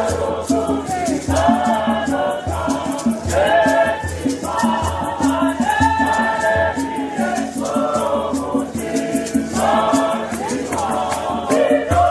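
Choir singing a church song to a fast, even percussion beat with low thumps underneath.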